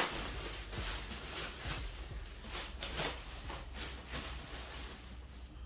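Clear plastic wrapping crinkling and rustling in uneven handfuls as it is pulled and peeled off a scooter.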